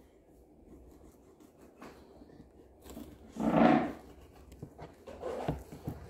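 Quiet knife work on a wooden cutting board as a snapper fillet is sliced: faint scraping and light taps of the blade. A little past halfway comes one short, louder, voice-like sound, the loudest thing heard.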